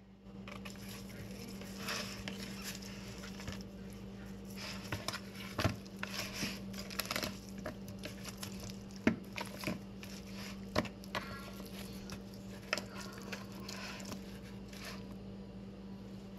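Raw chicken legs being squeezed and turned by hand in a plastic bowl, coating them in yellow mustard and spices: irregular wet squelching and slapping with sharp smacks, starting about half a second in, over a steady low hum.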